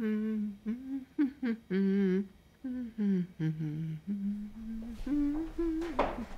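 A woman humming a slow, wavering tune to herself with her lips closed, in short held phrases.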